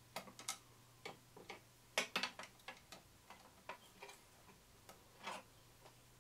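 Irregular small clicks and taps of long-nose pliers and the wire leads of a replacement X2 capacitor against the mixer's metal switch terminals and plastic housing, as the leads are worked onto the terminals. The clicks come unevenly, most densely about two seconds in, with a slightly longer one about five seconds in.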